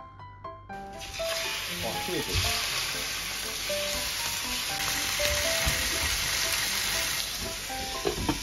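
Marinated chicken pieces sizzling in a hot nonstick frying pan as they are laid in with chopsticks; the sizzle starts about a second in. Near the end a glass lid clinks onto the pan.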